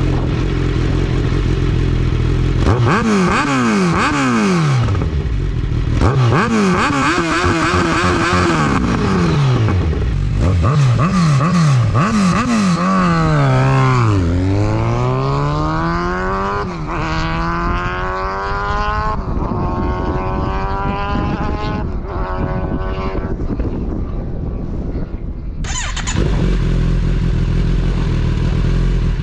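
Kawasaki Ninja 1000SX inline-four running through a Black Widow 4-into-1 full decat exhaust with the 200 mm baffle fitted. It idles, is revved up and down several times, then accelerates away with the pitch climbing and dropping at each of about four upshifts, fading into the distance. Near the end there is an abrupt cut to the same bike idling with the baffle taken out.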